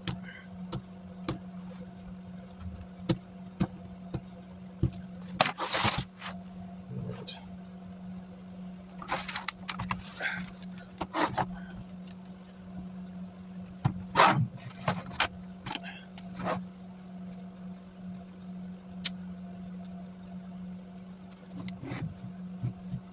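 Scattered clicks, taps and handling noises from working on a laptop during a screen replacement, over a steady low hum.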